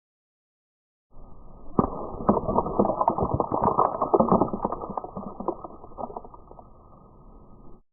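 A muffled explosion effect: a dull rumble starts about a second in, with a scatter of sharp crackles and pops through its loudest part, then it slowly dies away.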